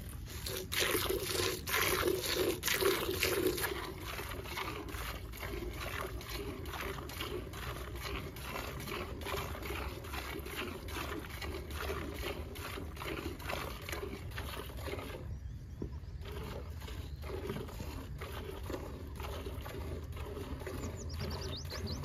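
A cow being milked by hand: jets of milk squirting into a metal pail in a steady rhythm of a couple of squirts a second, pausing briefly about fifteen seconds in.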